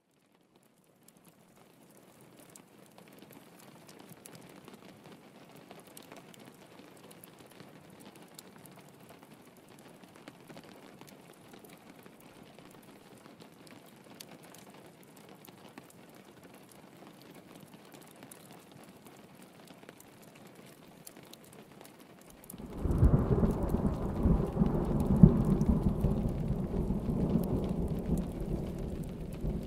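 Rain pattering on a window, fading in over the first couple of seconds. About 23 seconds in, a loud rumble of thunder breaks in, swells and keeps rolling under the rain.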